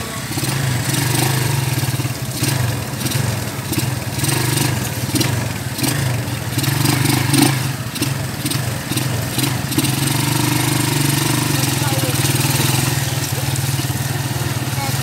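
Tricycle's motorcycle engine running steadily under load on a rough dirt road, heard from the sidecar. Short knocks and rattles come through over the first ten seconds, and the engine runs smoother after that.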